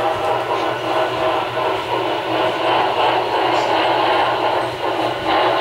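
Sound-equipped HO-scale model of a Union Pacific Big Boy 4-8-8-4 steam locomotive running, its decoder playing steam-engine sound through a small speaker, mixed with model wheels rolling on the track and a steady low hum.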